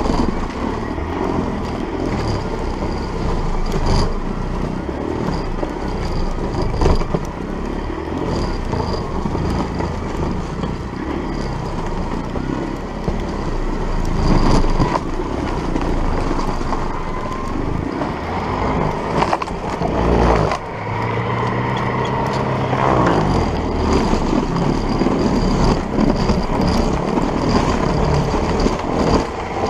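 An old MTD single-stage snowblower converted to a high-current electric motor, its motor and auger running under load as they chew through deep snow and throw it. The motor draws nearly 400 amps under load. The sound is loud and steady, with a short dip about two-thirds of the way through before it carries on.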